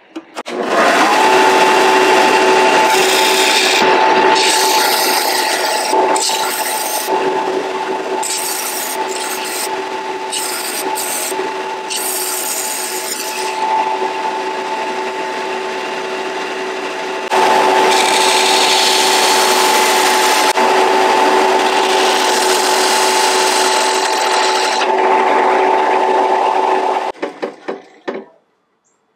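Bench belt sander switched on and running, its motor hum steady under a coarse grinding as the ends of a wooden slingshot fork are pressed onto the belt. The grinding fades and returns as the wood is lifted off and pressed back on. It stops near the end.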